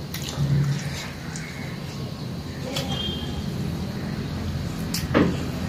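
Eating sounds: fingers mixing rice on ceramic plates and chewing, with a few small clicks, over a steady low background rumble.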